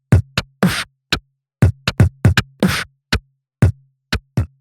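Electronic intro music: a drum-machine beat of punchy kick and snare hits over a low bass note.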